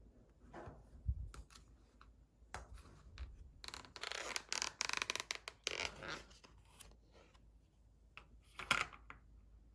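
Small scratching and rubbing handling sounds in a small room, with scattered light clicks, a busier stretch in the middle and one sharper rustle near the end.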